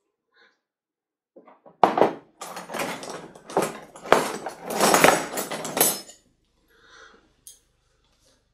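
Metal hand tools clattering and clinking together as they are rummaged through and swapped, a dense run of knocks and clicks lasting about four seconds.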